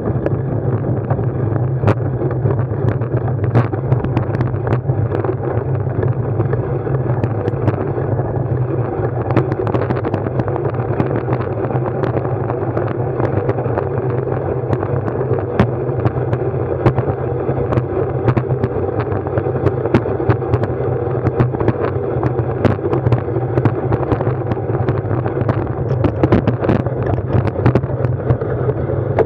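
Steady vehicle ride noise with a constant low hum and wind noise on the camera microphone, broken by many small sharp knocks and rattles.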